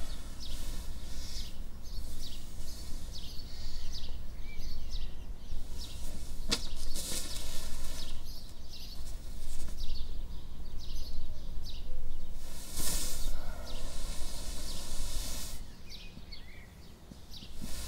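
Short chirps, likely songbirds, over a steady low hum, with a few bursts of hiss.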